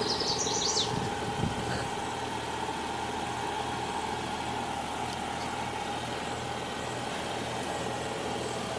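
Off-road vehicle's engine idling steadily while the vehicle sits stopped. A brief high chirping comes in the first second.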